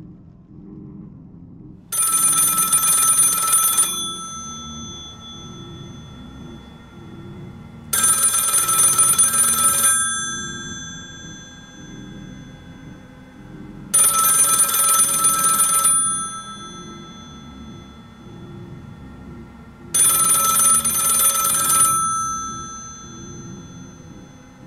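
Telephone ringing four times, each ring about two seconds long and six seconds apart, each ring lingering and fading after it stops.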